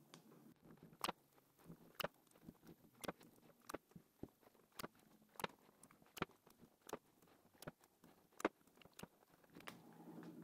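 Faint, sharp clicks and crackles of blue tape being handled and pressed over the screw terminals of a battery pack, about one click every second or less.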